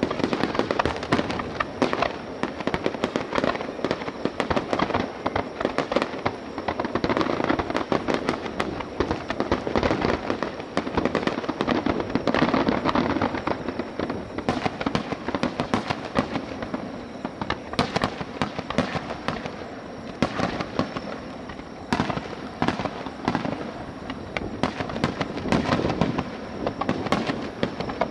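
Aerial fireworks bursting in a dense, continuous barrage: many sharp bangs and crackles overlapping with no pause between them.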